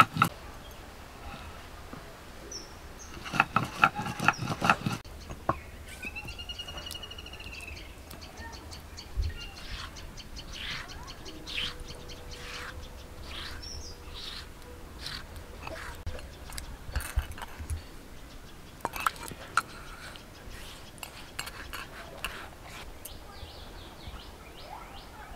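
Stone roller rubbing chopped onion against a flat grinding stone (shil-nora) in a quick run of back-and-forth strokes, followed by lighter scrapes and taps as the paste is gathered off the stone. A bird gives one short trilled call a few seconds in.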